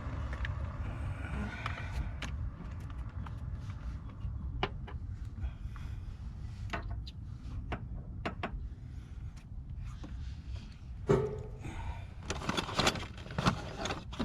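Hands fumbling with a plastic wiring connector and its harness in a cramped engine bay: scattered light clicks and knocks over a low steady rumble, a heavier knock about eleven seconds in, then a quick flurry of clicks near the end.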